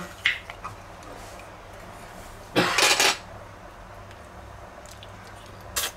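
Brief kitchen handling noises: a light click, a short rustling scrape about halfway through, and another click near the end, over a faint steady hum.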